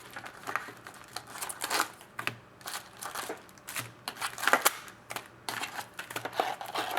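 A Topps Chrome trading-card pack being opened and its cards handled: irregular crinkling of the wrapper and short snaps and rustles as the cards are slid and flicked through by hand.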